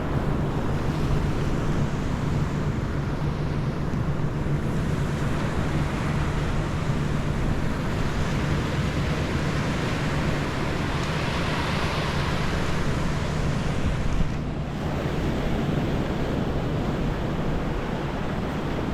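Sea surf washing onto the beach, with wind rumbling on the microphone. The wash swells louder a little past halfway, then dips briefly.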